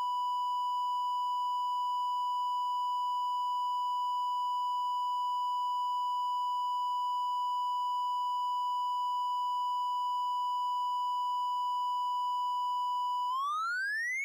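Steady 1 kHz test tone of the kind played with television colour bars. About a second before the end it glides upward in pitch.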